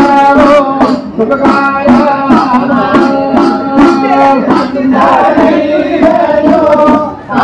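Male voice singing an Ayyappan devotional song (Ayyappan pattu) over a steady beat of drum strokes, with a brief lull just before the end.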